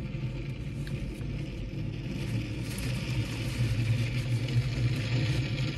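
A car engine's steady low rumble heard inside the vehicle's cabin, growing somewhat louder midway.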